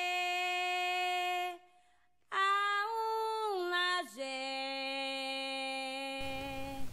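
A single voice singing long held notes with no accompaniment: one steady note, a short break, then a few notes that rise and fall, the last held low.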